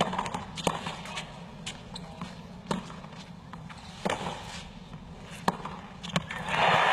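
Tennis rally: six sharp racquet strikes on the ball about a second apart, with fainter ball bounces between them over a low crowd murmur. Near the end the stadium crowd breaks into cheering and applause as the point is won.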